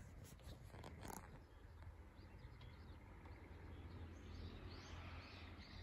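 Near silence: faint outdoor ambience with a steady low hum. There are a few soft clicks in the first second and faint bird chirping in the second half.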